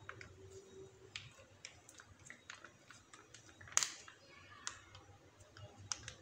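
Plastic mayonnaise squeeze pouch crinkling and clicking as it is squeezed, with sparse small clicks and one louder click a little under four seconds in.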